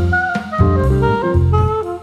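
Background jazz with saxophone, piano and drums.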